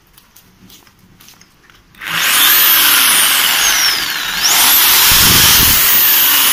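A Bosch GST 90 BE corded jigsaw with a 650-watt motor switches on abruptly about two seconds in and runs with no load, its blade stroking in the air. Around the middle its pitch falls and then climbs back up as the motor speed changes.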